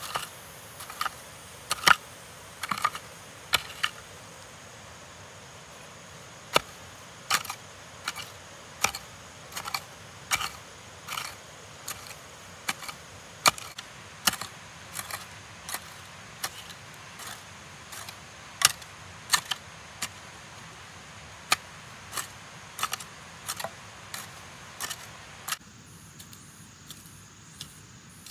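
Irregular series of sharp knocks or chops, roughly one a second with a short pause a few seconds in, over a steady faint hiss that drops off near the end.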